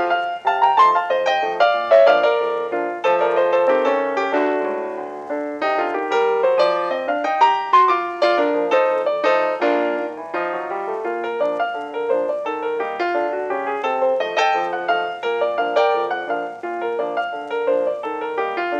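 Background piano music: a quick run of notes that continues throughout.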